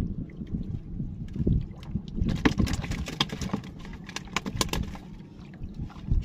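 Wind buffeting the microphone and water slapping against a small fishing boat's hull, with a run of sharp clicks and knocks from about two to five seconds in.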